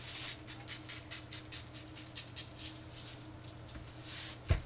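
Dry barbecue rub shaken from a shaker bottle over racks of ribs: a quick run of short, gritty rasps, about five a second, that stops a little before the end. A single low thump follows near the end.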